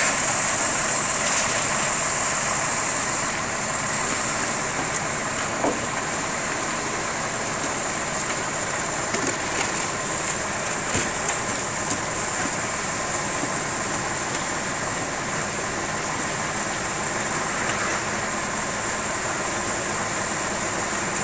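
An engine running steadily throughout, with a few faint knocks in the middle.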